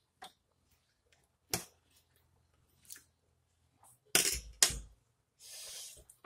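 Eating sounds at a plate: a few soft mouth clicks while chewing, then two loud sharp knocks a little after four seconds as metal cutlery is set against the plate, and a short breathy hiss near the end.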